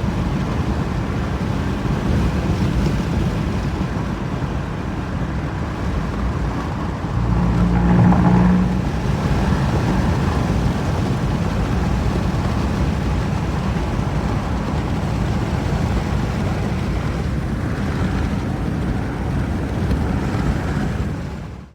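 Steady road and engine noise of a car being driven, with a brief swell in the low hum about a third of the way in.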